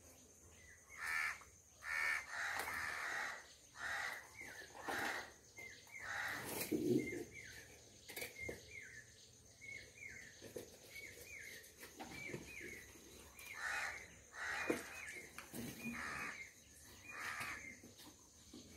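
Crows cawing again and again, harsh calls in loose groups, mixed with many quick short chirps.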